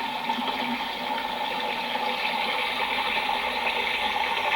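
Hot-spring water bubbling and running steadily from a natural vent.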